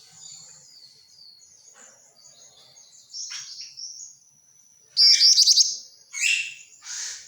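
Bird calling with faint, high twittering chirps, then a loud, rapid rattling chatter about five seconds in, followed by two shorter sharp calls. The bird is a female jingjing batu (black-winged flycatcher-shrike).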